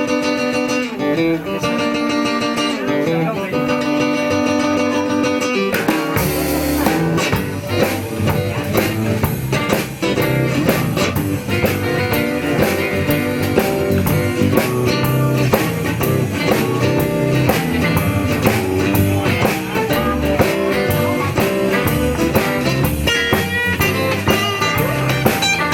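Live blues band playing an instrumental intro: an electric guitar alone at first, then drums and bass come in about six seconds in and the full band plays on.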